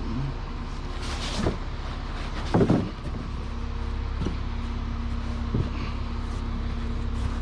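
A vehicle engine idling steadily, with a scrape about a second in, a clatter of bicycle frames being handled about two and a half seconds in, and a few lighter knocks after.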